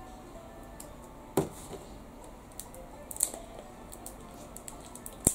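Scissors snipping at the wrapper of a surprise egg: a handful of short, sharp snips and crinkles, the loudest about a second and a half in. Faint background music runs underneath.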